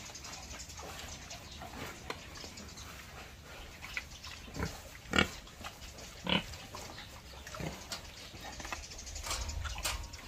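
Pigs grunting in short, separate grunts a few seconds apart while they nose at the pen floor, the loudest about five seconds in.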